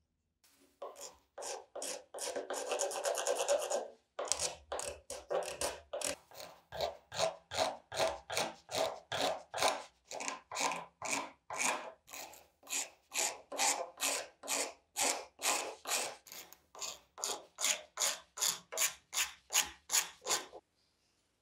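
A hand scraper drawn in repeated strokes along an old varnished wooden saw handle, stripping the varnish. A steady scrape for about two seconds, then a rhythmic run of about two strokes a second that stops near the end.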